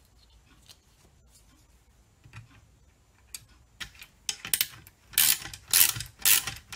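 Ratchet wrench clicking in back-and-forth strokes, tightening the bolts of a compressor base plate on its mount tray. Only faint, scattered clicks at first, then loud repeated strokes about two a second from about four seconds in.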